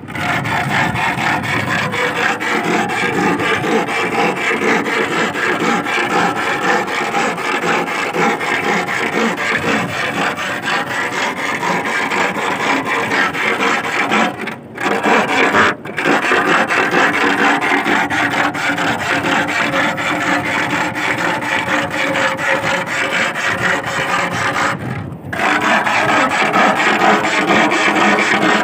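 Iron bar stuck in the sandy seabed being worked back and forth, a continuous fast rasping and grinding that breaks off briefly twice around the middle and once near the end. This noise from the iron is used to make sea worms (sasing) come up out of the sand on their own.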